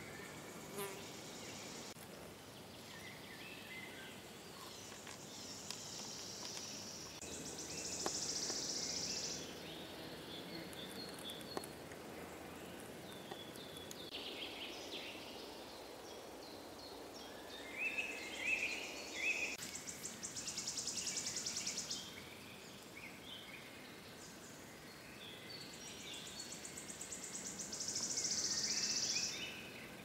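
Forest songbirds singing: a high, fast trill lasting about two seconds, repeated three times, with scattered chirping notes between the trills.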